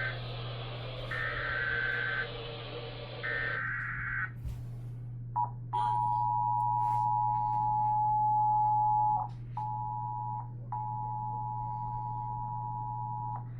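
Emergency Alert System SAME header data: the end of one burst and two more roughly one-second bursts of warbling two-tone digital data, over a hiss. After a short pause comes the EAS attention signal, a steady two-tone tone, which cuts out briefly twice before it ends.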